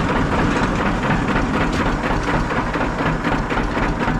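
Farm tractor engine running steadily at idle.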